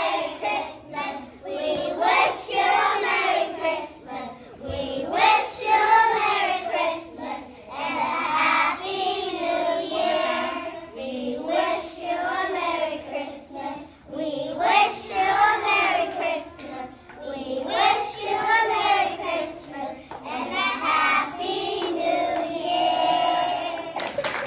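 Kindergarten children's choir singing a Christmas song together in sung phrases.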